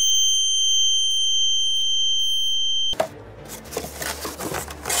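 Loud, high-pitched steady ringing tone, an edited-in sound effect, that cuts off suddenly about three seconds in. It is followed by quieter crinkling and rustling of a cardboard box being opened.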